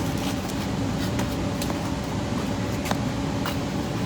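A loader's motor running with an even, steady hum, with a few light clicks scattered through.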